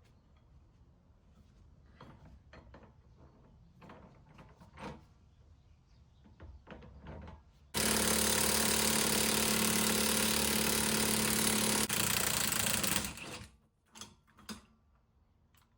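A few light metallic clinks, then a power impact wrench hammering steadily for about five seconds, with a brief break near the end, as it drives a bearing puller set up on a wheel hub.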